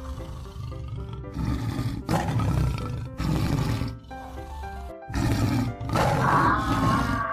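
Background music with a simple stepped melody, overlaid by a run of about five animal roar sound effects, each about a second long.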